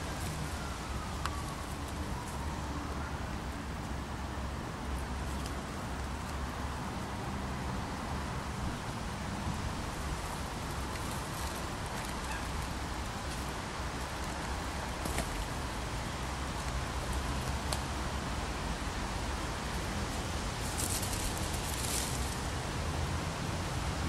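Steady outdoor background noise: a low rumble with a hiss over it, with a few faint clicks and a brief rustle near the end.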